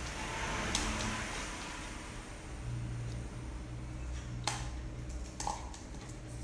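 A few sharp taps from a dog batting and mouthing a hollow plastic toy ball on a tiled floor, over a steady low hum.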